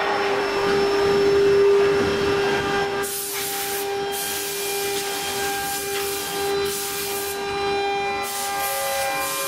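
CNC wood router with automatic loading and unloading running, giving a steady machine whine. A hiss of air comes in about three seconds in and breaks off briefly a few times.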